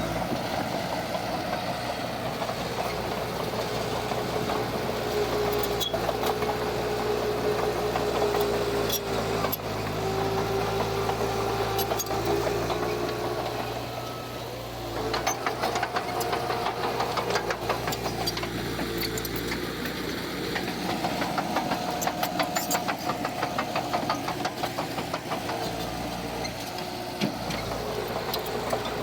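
Heavy diesel engine of earthmoving machinery running under load, its pitch shifting up and down. Rapid clanking and rattling comes in from about halfway through.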